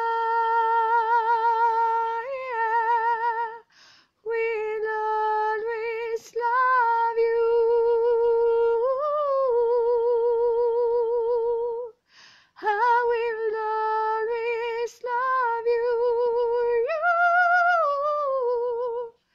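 A woman singing unaccompanied: three long phrases of held notes with a wide, even vibrato, separated by short breaths, the pitch lifting to a higher note twice.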